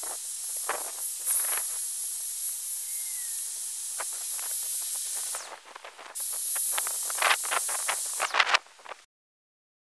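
Handheld electric paint sprayer hissing as it sprays paint, with a thin high whine. It drops out briefly about five and a half seconds in, starts again, then stops about nine seconds in.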